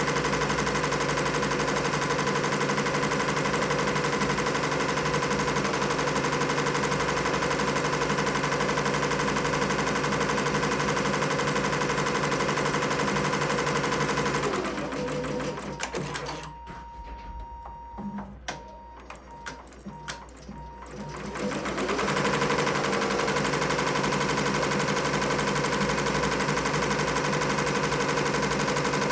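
Multi-needle embroidery machine stitching at a steady, fast rhythm. About halfway through it slows to a stop. In the pause come clicks and a tone that breaks into short beeps. A few seconds later it speeds back up and stitches on.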